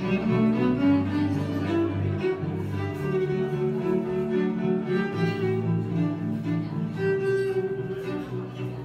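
Electric violin bowed in a slow melody of long held notes, over a deep sustained bass accompaniment.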